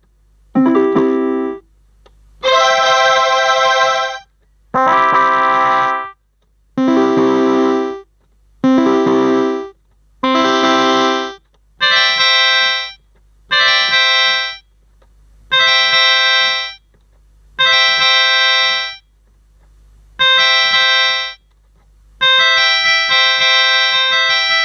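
MK-2117 electronic keyboard playing about a dozen held notes or chords, each lasting about a second with short gaps between them. The sound turns brighter and higher from about halfway through, and the last chord near the end is held longer.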